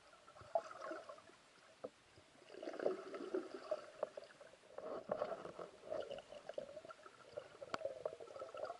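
Underwater gurgling and water movement heard through a submerged camera, with scattered sharp clicks and knocks.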